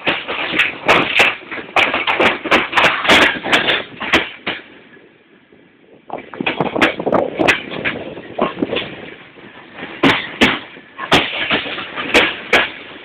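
Passenger train's wheels clattering over rail joints and switches, heard from an open carriage window: loud, irregular knocks in quick succession over a rushing noise. The clatter drops away for about a second and a half near the middle, then comes back abruptly.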